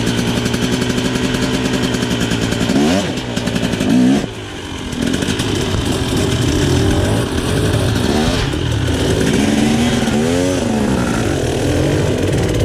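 Dirt bike engine working under load on a rocky climb, chugging at low revs with several quick throttle blips that rise and fall in pitch.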